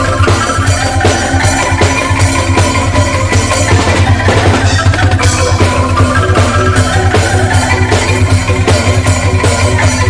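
Street angklung ensemble playing upbeat music on racked bamboo angklung and calung, with drums keeping a fast, steady beat under a deep, pulsing bass.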